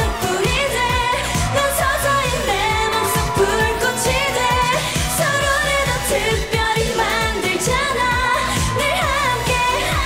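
A K-pop song: singing over a pop backing track with a steady beat and bass.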